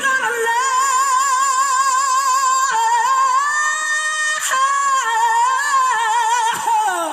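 A singing voice holds a long high note with wide, even vibrato. It breaks off briefly twice, then slides down in pitch near the end.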